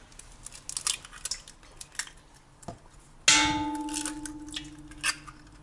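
An egg is tapped against a stainless steel mixing bowl, with light clicks of shell at first. About three seconds in, a sharp knock on the bowl sets it ringing with a clear metallic tone that fades away over about two seconds.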